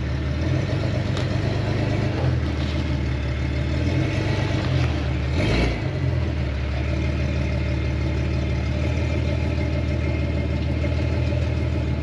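Jeep Grand Cherokee WJ engine running at low revs, with the revs rising and falling a few times as the front tire climbs a stack of spare tires to flex the suspension. A brief rough scraping noise comes about five and a half seconds in, and the engine cuts off at the end.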